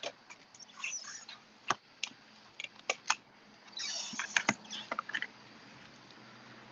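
Light clicks, taps and short paper rustles from handling a card panel and the hinged clear acrylic lid of a stamping platform, with a cluster of rustling and sharp clicks around the middle.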